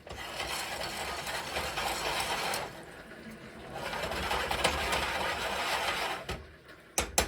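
Stovetop cooking noise: a steady hiss in two stretches of about two and a half seconds each, then a few sharp clicks and knocks near the end.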